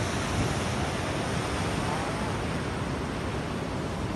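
Sea surf breaking and washing over shoreline rocks, a steady rush of water.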